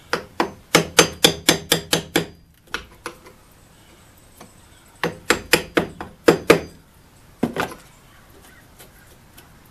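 Claw hammer tapping a thin metal tool held against the wooden frame of a window sash. The taps come in two quick runs of eight to ten, about five a second, with a single tap near the end.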